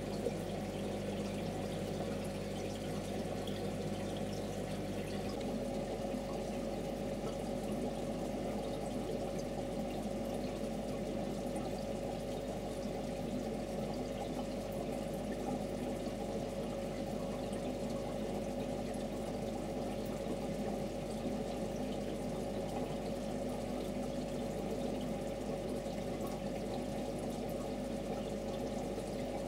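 Steady trickling and bubbling of aquarium water, with a low steady hum; part of the hum drops away about five seconds in.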